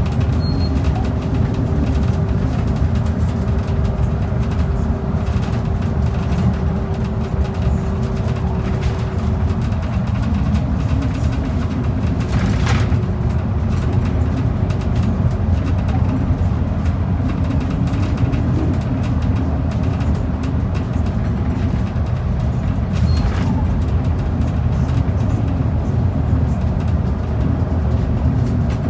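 Transit bus cabin noise while under way: a steady low rumble of engine and road noise, with a faint steady whine that fades about ten seconds in. Two brief sharp clicks stand out, one about thirteen seconds in and one near twenty-three seconds.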